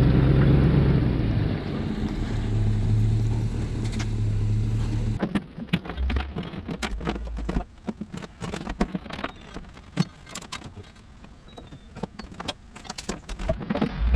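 A vehicle engine running steadily, then cut off suddenly about five seconds in; after that, scattered light clicks and knocks.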